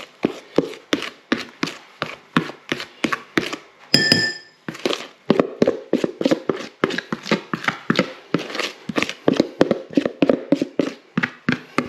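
A spoon knocking and scraping against a mixing bowl at about three strokes a second, as sponge batter is spooned out onto golden syrup in a pudding basin. About four seconds in, one clink rings out briefly.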